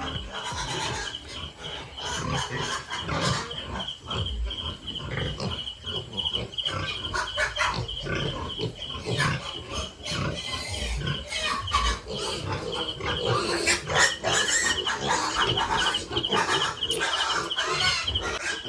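Pigs grunting and calling, loudest about fourteen seconds in, over a high, fast-pulsing chirp in the background.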